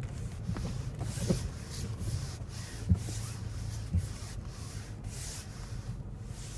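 Inside a car creeping across a wet parking lot while parking: a steady low engine and road hum, with repeated short swishes and a few light knocks.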